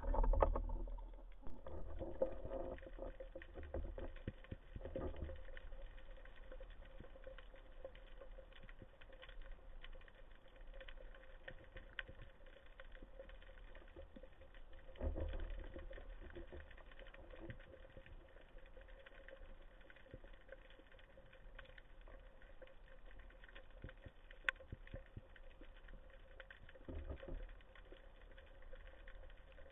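Muffled underwater sound through a diver's camera housing: low thumps and water movement from the diver handling the catch and swimming, loudest at the start and again about halfway through. Under it runs a faint steady hum and a constant fine crackle of small clicks.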